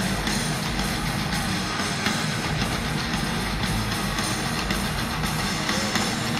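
Heavy metal band playing live at stadium volume: distorted electric guitars over a pounding drum kit, heard from the crowd.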